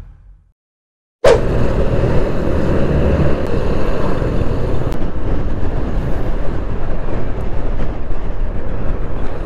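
Onboard riding noise from a motorcycle moving along a road: steady wind rush on the microphone over engine and road noise. It cuts in suddenly about a second in, after a brief silence.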